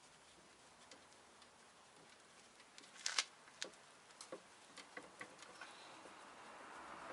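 Faint, sparse metallic clicks and taps of an open-end wrench being worked on a brake-assembly bolt, a small cluster about three seconds in followed by lighter ticks. A faint hiss swells near the end.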